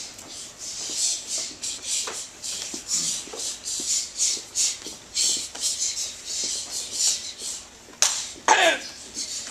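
Quick, sharp swishes and snaps of taekwondo uniforms as several students punch and kick through a form, coming irregularly a few times a second. About eight and a half seconds in there is one shout falling in pitch, a student's kiai.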